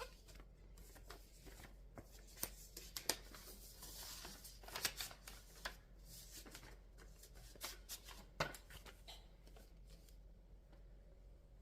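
Faint clicks, taps and short rustles of small objects being handled, thickest in the middle and dying away near the end.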